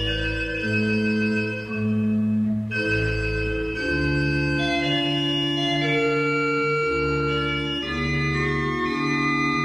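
Organ music: slow sustained chords moving over deep held bass notes.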